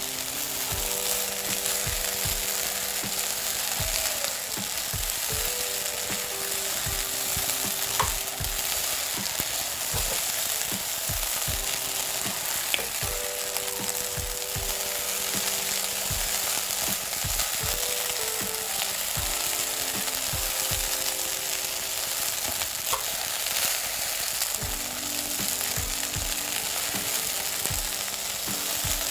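Rice sizzling in a hot non-stick pot on high heat, drying out as it fries, while a spatula stirs and turns it with frequent soft knocks and scrapes against the pan.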